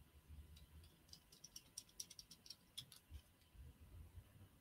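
Faint, irregular ticks and clicks of a precision screwdriver working a tiny caseback screw on a Casio F-91W watch, most of them in the middle stretch.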